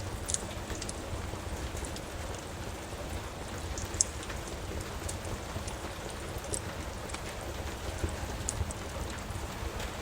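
Steady rain with scattered sharp pops and crackles from a wood fire; the loudest pop comes about four seconds in.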